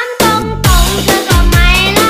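Pop-style music with a steady heavy beat and a singing voice, briefly dropping out just after the start.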